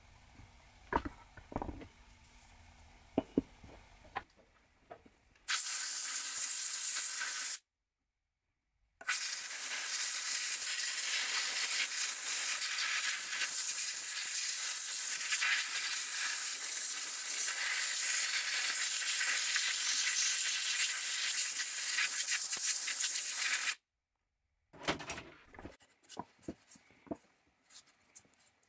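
Aerosol cleaner hissing in steady sprays onto a small-engine magneto's ignition points: a short spray, then a long one of about fifteen seconds. Before and after, light clicks and taps of small tools on metal.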